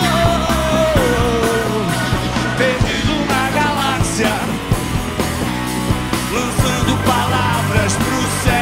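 A rock band playing an instrumental break between sung lines, with a lead melody that slides in pitch over drums and bass.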